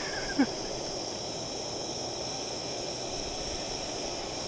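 Steady outdoor background hiss with a constant high-pitched band, and a brief murmured voice sound just after the start.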